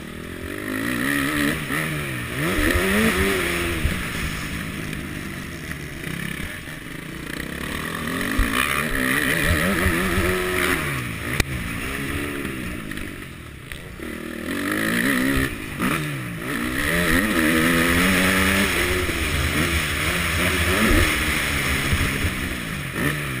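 Motocross bike engine heard from on board, revving up and dropping back again and again as the rider opens and shuts the throttle and shifts through the gears around the track, with a steady rushing hiss of wind over the microphone.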